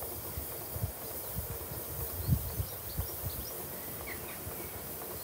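Small birds chirping in short, high, rising notes, over a faint low rumble broken by occasional dull thumps, the strongest a little after two seconds in.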